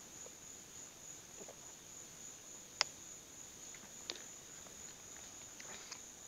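Steady high-pitched chirring of crickets, with two sharp clicks a little over a second apart near the middle.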